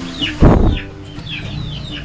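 Chickens calling in repeated short, high cheeps that fall in pitch, with a loud muffled thump about half a second in.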